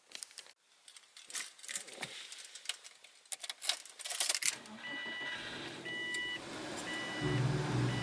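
Car keys jangling and clicking as the key goes into the Subaru's ignition and is turned. About halfway through, a dashboard warning chime starts beeping about once a second over a steady fan hiss, and near the end the car radio starts playing music.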